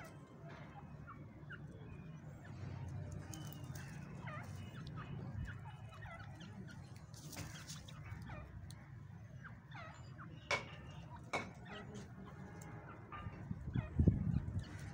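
Birds calling in short, scattered chirps, poultry among them, over a steady low rumble of background noise. Two sharp clicks come a little past the middle, and a louder low thump comes near the end.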